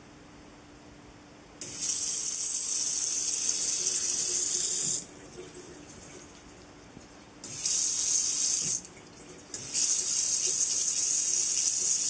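Touchless sensor faucet (Oras Electra 6330F) running water into a sink in three spells, a long one, a short one, then another long one. Each spell switches on and off abruptly as the sensor triggers on the cat drinking from it.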